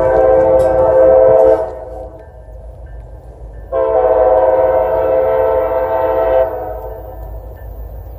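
Horn of an approaching CSX freight train's lead diesel locomotive, a GP40-3, blowing two long blasts. The first ends about a second and a half in; the second starts near four seconds in and holds for nearly three seconds.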